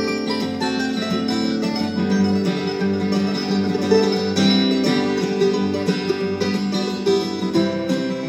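Instrumental break of a folk song played live on acoustic plucked string instruments, with no singing.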